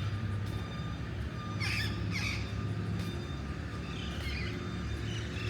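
Birds calling outdoors: a few short, harsh calls, two close together about two seconds in and more near the end, over a low steady hum of city background.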